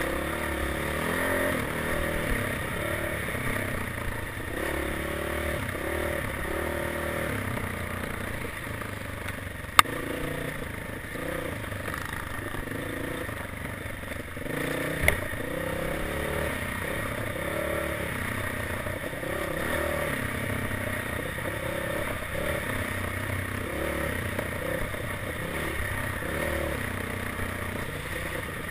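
Dirt bike engine on a forest trail, heard from the rider's helmet, its revs rising and falling continuously with the throttle, under a rattle and scrape of the bike over the ground. A sharp knock about ten seconds in and a smaller one around fifteen seconds.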